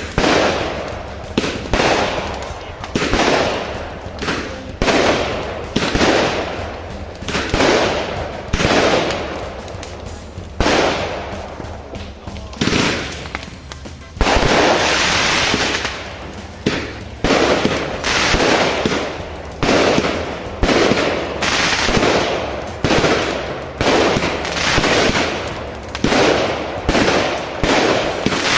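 Firework barrage cake firing shot after shot, about one bang a second, each bang trailing off as it rings out. About halfway through, a denser burst of crackling runs for about two seconds before the single shots resume.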